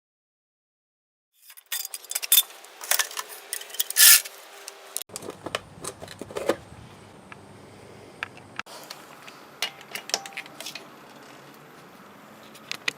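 Irregular metallic clicks and clinks from handling tools or parts, with one loud knock about four seconds in, then scattered lighter clicks over a faint steady hum.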